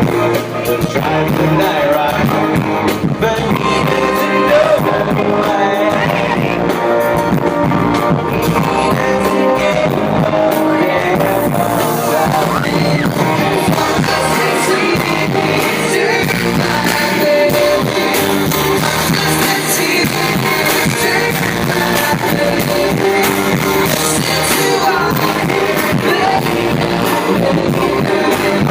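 A live pop-rock band plays with electric guitar and sung vocals, continuously and loudly, heard through a phone's voice-memo recording.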